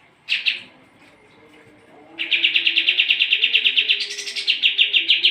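Kapas tembak songbird calling: one short chirp, then about two seconds later a loud, rapid trill of about nine notes a second that steps up in pitch near the end.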